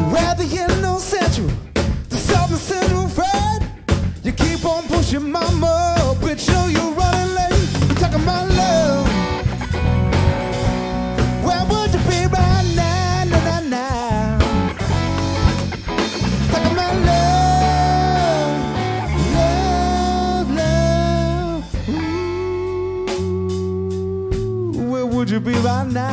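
Rock band playing live: electric guitar, bass guitar and drum kit, with a lead line of bending, held notes over a steady beat.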